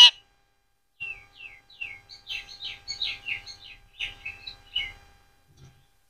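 Rose-ringed parakeets chirping: a quick run of short notes that each fall in pitch, about three or four a second, after one sharp, loud burst right at the start.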